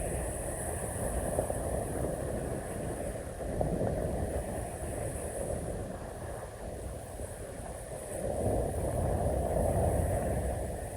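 Wind buffeting the microphone: a low, rumbling rush with no distinct events that swells and eases slowly, louder around the middle and again near the end.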